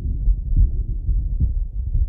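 A man's heartbeat heard through a stethoscope: slow, even, muffled thuds a little under a second apart, two beats in these seconds, over a faint steady hum.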